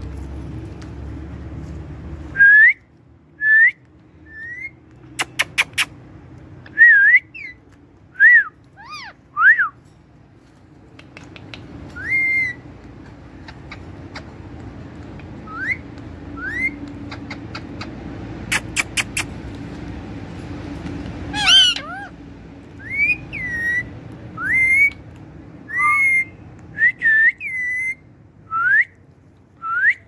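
Indian ringneck parakeets whistling: dozens of short single notes that rise or fall, with one harsh squawk about two-thirds of the way through and a few quick runs of clicking.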